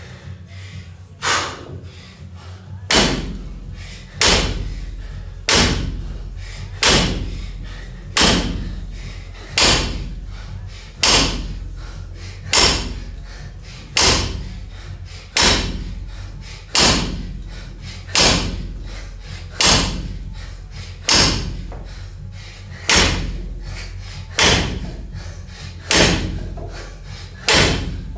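Loaded barbell with 20 kg bumper plates, 100 kg in all, hitting a wooden lifting platform at the bottom of each deadlift rep: a regular thud about every second and a half, about nineteen in a row, each with a short ring.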